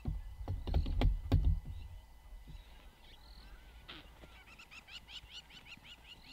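Blue wildebeest giving a quick string of short, loud honking snorts in the first two seconds. Typical alarm calls at approaching wild dogs. From about four seconds in, a quieter rapid run of high chirps, about five a second.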